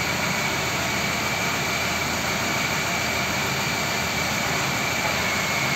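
Steady machine noise: an even roar with a constant high-pitched whine running through it.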